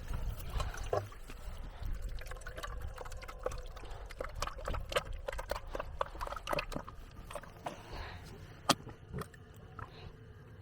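Water running and pouring into a container to give the goats a drink, with scattered knocks and clicks of handling throughout.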